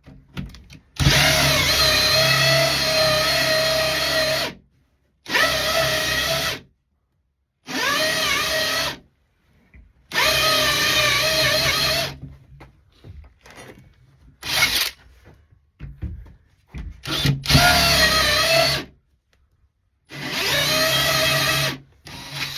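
Power drill running a hole saw into a door for a lock handle, in about six separate bursts of a second or two to three seconds each, the motor whine sagging in pitch as the saw bites. The cutting is tough going.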